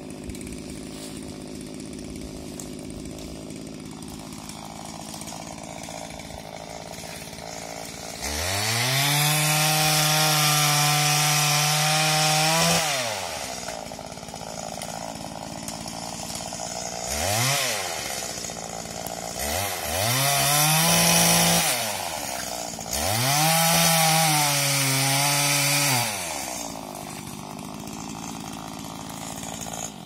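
Petrol two-stroke pole saw idling, then revved to full speed in bursts to cut hazelnut stems: a run of about four seconds, a short blip, then two runs of about three seconds each, dropping back to idle near the end.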